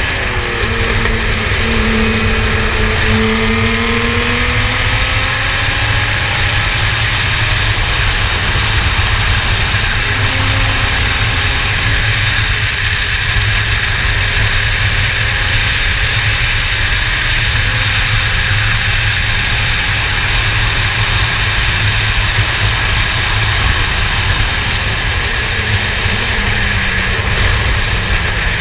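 Formula Yas 3000 race car running at speed: a loud, steady rush of noise, with the engine note gliding down and back up in the first few seconds.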